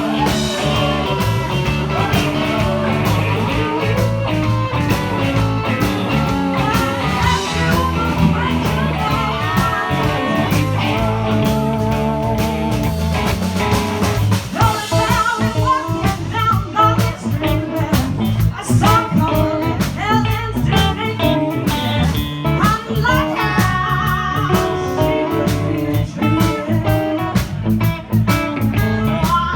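Live blues band playing a swinging improvised jam, with guitar over a steady beat. From about halfway a voice improvises over the band.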